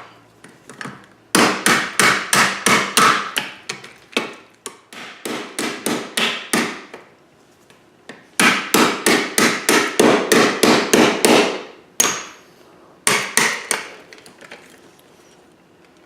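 Rapid hammer strikes, about three a second, in three runs: a long run, a shorter one, then a brief few near the end. The blows land on a damaged fire alarm pull station that is being refurbished.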